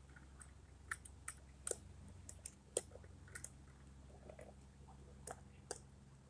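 Faint, irregular small clicks and crackles from hands handling a die-cast toy rear-loader garbage truck, with dry grass crackling in its hopper, over a steady low hum.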